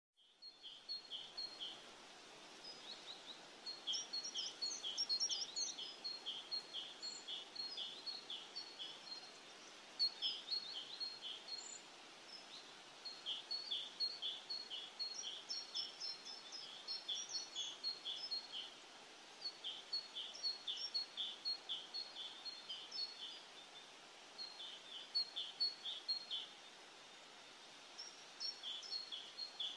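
Small birds chirping in phrases of rapid, repeated high notes several seconds long, with short pauses between them, over a faint steady hiss.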